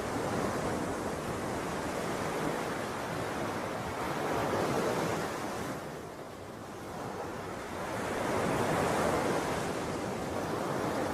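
Ocean surf: waves washing in and drawing back, swelling about four seconds in and again near the end, with a lull between.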